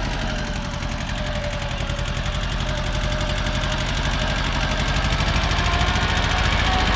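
Small Kubota compact tractor's diesel engine running steadily with a fast, even knock, growing louder as the tractor drives closer.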